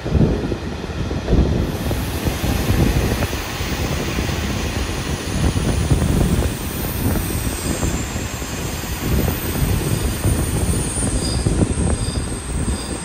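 Passenger coach running on the rails, heard from an open window: a steady rushing rumble with irregular knocks as the wheels pass over rail joints and points. A thin high wheel squeal joins in during the second half.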